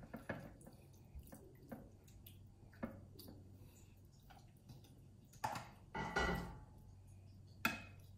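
A metal spoon scraping and knocking against a wok as a wet cod and vegetable mixture is scooped out and dropped into a glass baking dish. The strokes are scattered and separate, with a louder, longer scrape about six seconds in.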